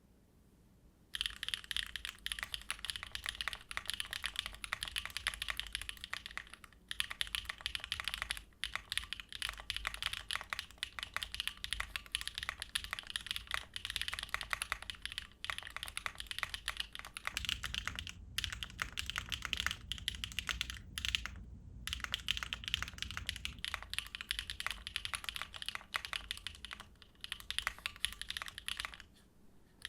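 Fast continuous typing on a Neo Ergo mechanical keyboard fitted with HMX Retro FJ400 linear switches, starting about a second in, with a few brief pauses. The keystrokes are clacky and mid-pitched, from a soft T2 stem and a nylon/fiberglass bottom housing; the board has no foam, and the builder hears resonance from the case.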